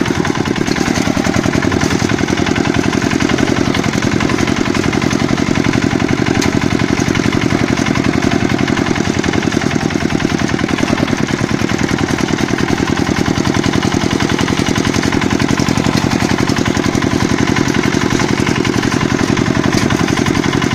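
Walk-behind tractor (motoblock) engine running steadily, with fast, even firing pulses that stay unchanged throughout.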